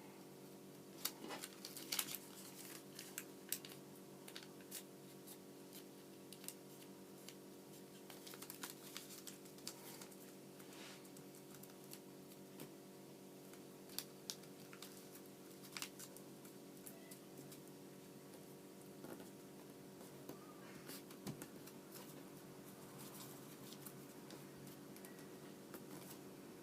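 Origami paper being folded and creased by hand: scattered soft crinkles, rubs and taps, over a faint steady hum.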